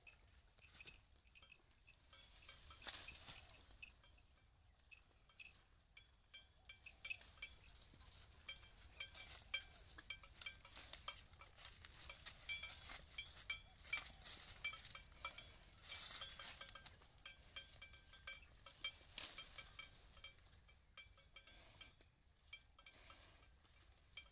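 White humped cattle browsing a leafy bush: irregular crackling, snapping and rustling of leaves and twigs as they tear at and push through the foliage, with light clinking. It is busiest through the middle and thins out near the end.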